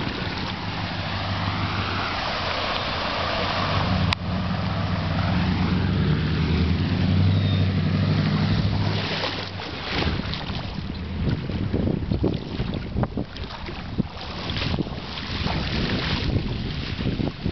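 A motor hums steadily for the first nine seconds or so, then fades out. After that, wind buffets the microphone in gusts.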